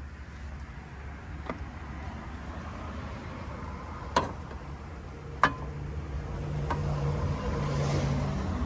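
Intake parts being pushed and fitted together by hand, with several sharp clicks and knocks, over a steady low hum.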